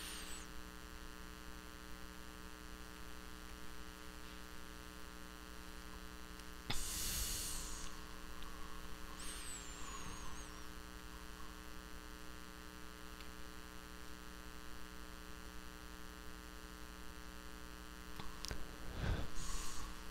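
Steady electrical mains hum, with two short hissing sizzles about seven and about nine to ten seconds in as a soldering iron melts flux-core solder onto wire joints on a circuit board. A soft knock and a click near the end.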